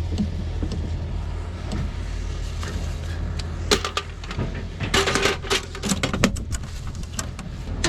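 An engine running steadily, with a series of sharp metallic clicks and clatters in the second half.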